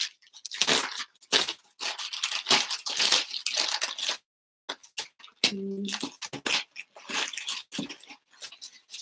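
Plastic courier mailer bag crinkling, rustling and tearing as it is ripped open and handled, in irregular bursts. A short hummed vocal sound just past halfway.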